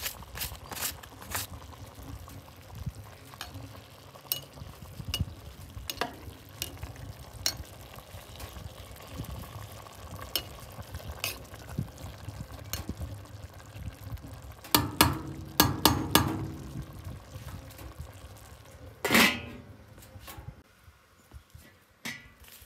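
A metal slotted spoon scraping and tapping against a metal pot of hot rice as butter is stirred in, with a low sizzle underneath. About fifteen seconds in there is a quick cluster of louder clatters, and near the end a single louder metallic clang as the lid goes onto the pot.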